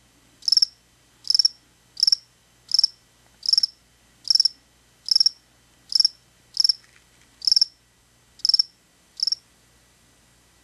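Black field cricket chirping: about a dozen short, high chirps at an even pace of roughly one every three-quarters of a second, stopping about nine seconds in.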